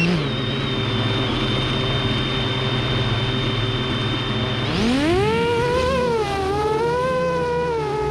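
A 7-inch FPV quadcopter's electric motors and propellers whir steadily with rushing air. About five seconds in, the whine climbs sharply in pitch as the throttle is pushed, then wavers up and down with the throttle.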